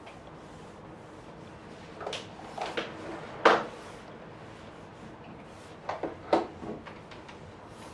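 Quick drawing strokes scratching across paper: a few short strokes about two seconds in, the loudest near three and a half seconds, and another short cluster around six seconds.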